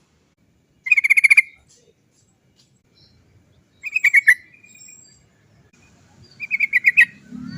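Yellow-vented bulbul singing its bubbling 'cok cok cok' chatter. It gives three short bursts of quick repeated notes, each about half a second long, a few seconds apart.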